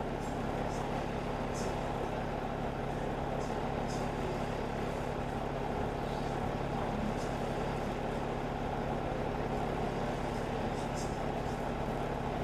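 Steady engine and road drone heard inside a KMB Alexander Dennis Enviro500 MMC double-decker bus on the move, with a low steady hum and faint light rattles now and then.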